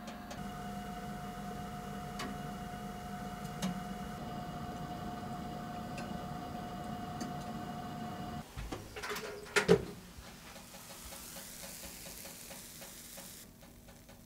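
De'Longhi countertop oven running while baking, a steady hum with a few faint ticks. About eight and a half seconds in the hum stops, there are some clicks and one sharp loud clack, and then a soft hiss.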